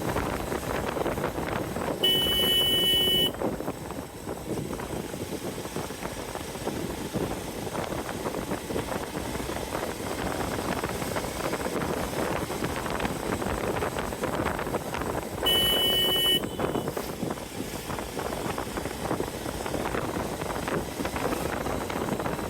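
Hero XPulse 200 Pro's single-cylinder engine running while riding, with wind on the microphone. Two horn blasts sound, each about a second long: one about 2 seconds in and another about 15 seconds in.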